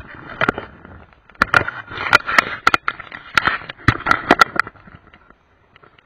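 Loose river-bank pebbles crunching and clacking in an irregular run of sharp knocks as a landed common carp is handled on the gravel, dying away about five seconds in.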